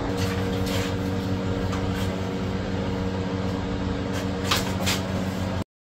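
A steady machine hum with several low pitches held together, with a few light clicks and taps of hands working on wiring; the sound cuts off suddenly near the end.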